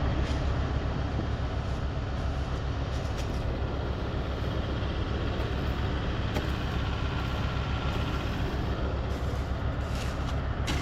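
Concrete pump running steadily while pumping concrete through the hose line, a constant low mechanical drone with a few faint clicks.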